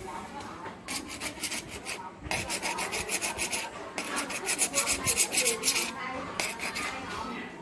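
Hand sanding with quick back-and-forth strokes, about six a second, in three spells, the last the loudest: abrasive rubbed over the scratched laptop casing to smooth it before painting.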